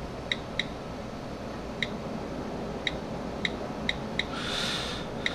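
iPhone on-screen keyboard key clicks as a word is typed letter by letter: about eight short, sharp ticks at uneven intervals over a low room hiss. A soft breathy hiss comes shortly before the end.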